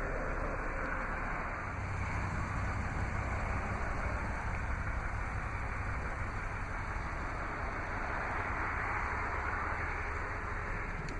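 Steady background noise with a constant low hum underneath.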